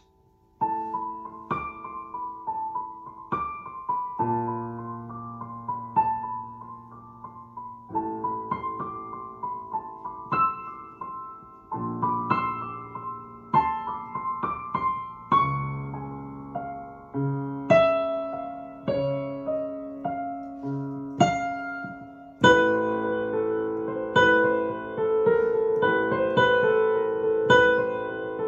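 Electronic keyboard played with a piano sound: a melody of separate struck notes over held chords. It starts just under a second in and grows fuller and louder in the last quarter.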